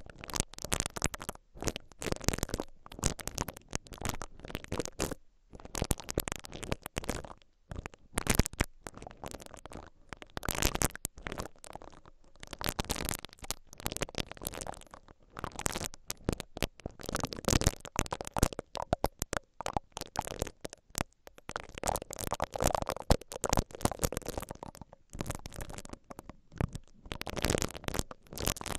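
Silicone bristle ear pick (a caterpillar-style ear-cleaning brush) slowly rubbed and twisted against the mesh grille of a stereo microphone capsule: close, scratchy rubbing in irregular strokes, with a few short pauses.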